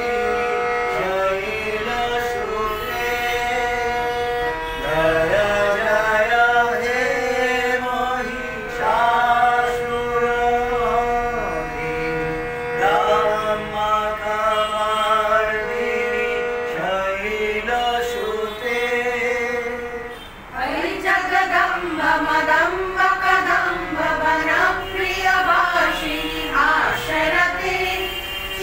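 A group of men and women singing a song together from song sheets, holding long notes with a melody that rises and falls. About twenty seconds in the singing breaks off briefly and then resumes.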